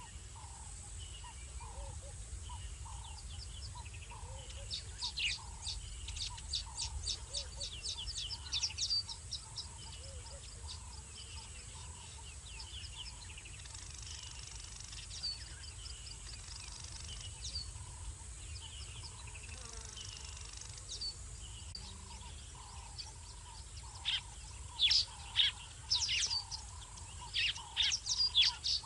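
Small birds chirping in quick runs of short, high, downward-sweeping notes, loudest about five to nine seconds in and again near the end. Beneath them a soft lower note repeats about twice a second over a faint low rumble.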